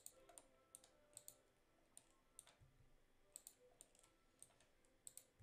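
Faint, irregular clicks of a computer mouse and keyboard, several in quick pairs, as faces are selected and the E key is pressed to extrude them.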